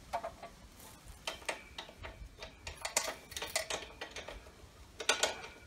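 Irregular light metallic clicks and clatters in a few short clusters as a square steel tube is shifted on the base of a chop saw and clamped in its vise.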